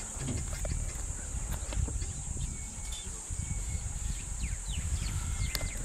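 A steady high-pitched insect drone with a low rumble underneath, and scattered short bird chirps throughout.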